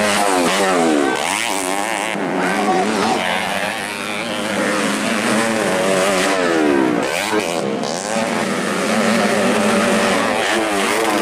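Several modified underbone (bebek) motocross motorcycles revving hard, their engine notes overlapping and rising and falling in pitch over and over as riders open and close the throttle over the jumps.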